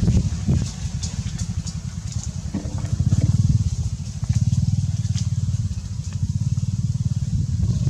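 A low engine rumble with a rapid, even pulse, louder for a while in the middle, with faint clicks and rustles above it.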